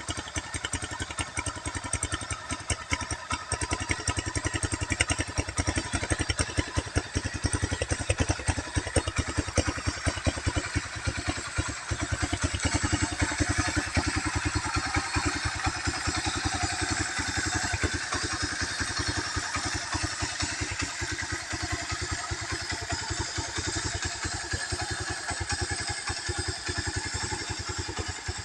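Honda CB motorcycle engine idling as it warms up, a steady rapid beat of exhaust pulses that eases a little about halfway through.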